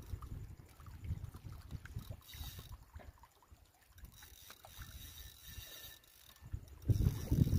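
Water lapping against the rocky lakeshore, with wind rumbling on the microphone; the rumble turns much louder near the end.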